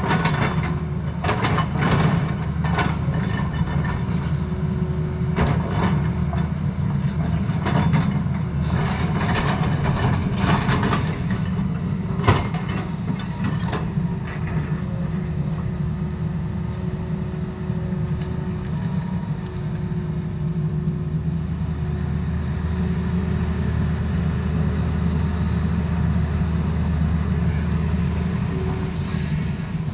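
Tata Hitachi excavator's diesel engine running steadily under work. Over roughly the first dozen seconds the bucket scrapes and knocks on rock and stones clatter, with one sharp knock near the end of that stretch; after that only the steady engine is heard.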